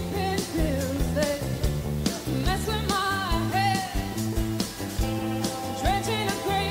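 Rock music from an outdoor concert: a singer's voice over sustained bass notes and a steady drum beat.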